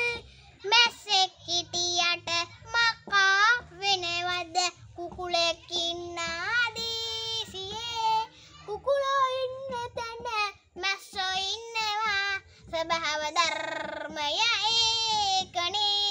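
A young boy singing a song in short melodic phrases with brief pauses between them.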